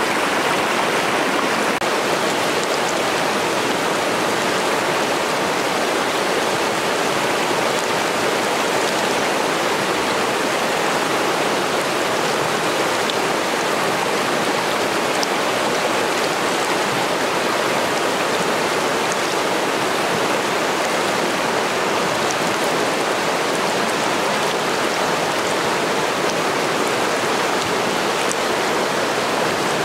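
Steady rushing of a fast, rocky river running through whitewater riffles.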